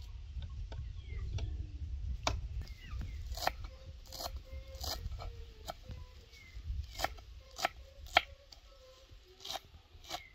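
Small kitchen knife chopping fresh parsley on a wooden cutting board: irregular sharp knocks of the blade striking the wood, about one or two a second.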